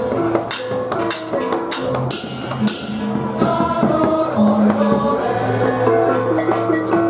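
Balinese baleganjur gamelan playing: cengceng kopyak hand cymbals clashing with kendang drums and pitched gong notes. The cymbal crashes are densest in the first three seconds; after that the pitched gong melody comes forward, with a long low tone from about five seconds in.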